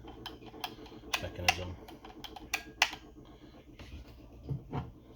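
A run of sharp, irregular clicks from the DeWalt FlexVolt grinder's safety mechanism being worked by hand, the loudest about a second and a half and nearly three seconds in. Two softer knocks come near the end.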